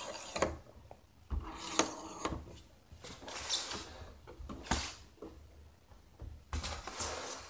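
Telescopic metal antennas on a Gemsound GMW-61 wireless microphone receiver being pulled out and adjusted by hand: a few separate scraping, rattling handling noises with small knocks.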